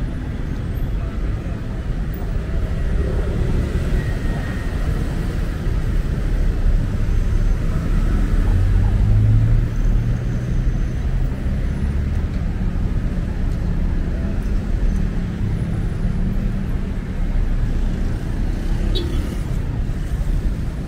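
Steady city road traffic: cars and buses passing on a busy multi-lane road. A low engine hum swells to its loudest about halfway through as a vehicle passes close.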